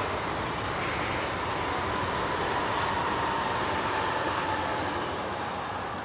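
Steady rushing engine noise with a faint tone slowly falling in pitch, easing off a little near the end.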